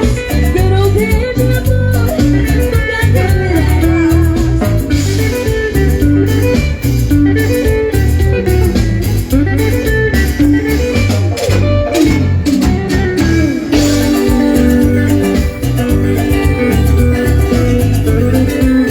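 Latin American dance music played loud, with a guitar melody over a steady bass beat.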